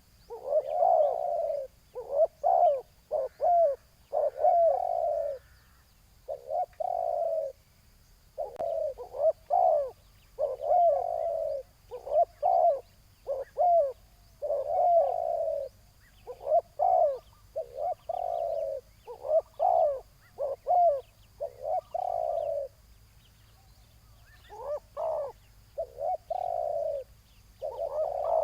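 Spotted doves cooing: a long run of short, repeated coo phrases with brief gaps between them and one longer pause a little after two-thirds of the way through.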